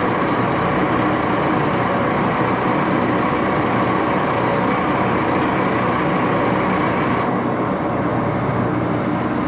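Axelson 14 x 30 inch geared-head lathe running steadily, its headstock gears giving a loud, even mechanical noise with many steady tones. A little over seven seconds in, the higher part of the sound drops slightly.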